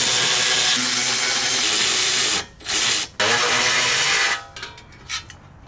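Cordless power driver running in spurts as it backs screws out of a bus's front body panel: a long run of about two seconds, a short burst, another run of about a second, then a brief blip near the end.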